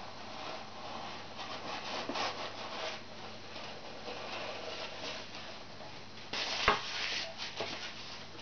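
Cloth rustling and rubbing as a folded fabric is pulled out of a tube by hand, with one sharp knock about two-thirds of the way through.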